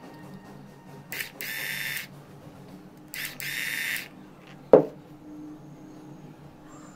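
Electric drill fitted with a screwdriver bit run twice, about a second each time, working screws on a small motor's frame: each run is a short blip and then a steady whine. A sharp click follows a little before the five-second mark.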